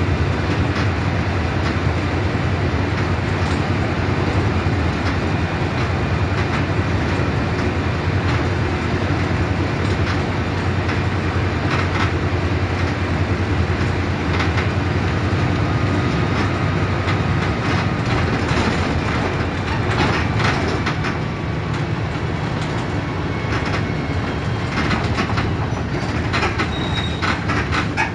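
Mercedes-Benz OF 1721 BlueTec 5 diesel bus running steadily, a constant low engine drone under road and body noise, with clicks and rattles from the bodywork that become more frequent in the last several seconds.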